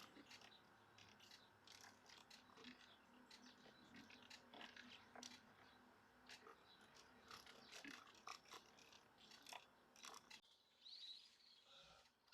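Small birds giving faint, short, irregular chirps and ticks, with a slightly longer chirp near the end.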